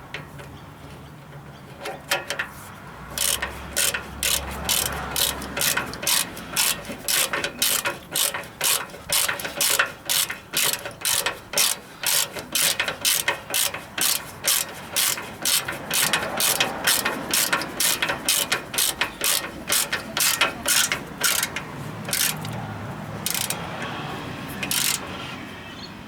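Hand ratchet clicking in repeated back-strokes, about two a second, as it runs a nut down onto a sway bar link bolt; the strokes thin out near the end as the nut tightens.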